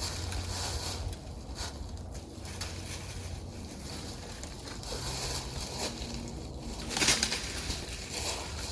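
Wood crackling and crunching as cedar limbs are cut, loudest about seven seconds in, over a low steady hum.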